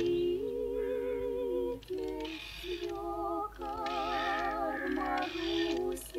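A voice sings a slow Russian folk melody in long held notes with vibrato. Three times, for about half a second each, a rotary telephone dial whirs back over it.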